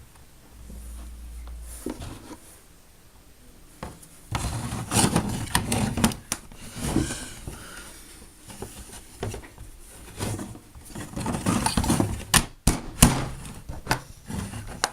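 Handling noises of plastic Play-Doh toy pieces and molds: scattered clicks and knocks with rustling. The sounds start about four seconds in and are busiest in the second half.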